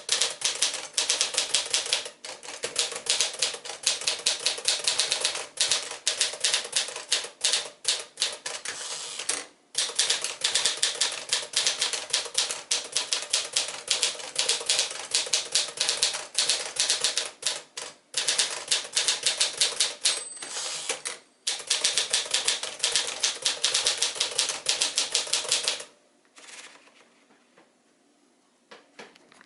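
1955 Smith-Corona Silent-Super manual portable typewriter being typed on: a fast, steady run of keystroke clacks with a few short pauses. The typing stops about four seconds before the end.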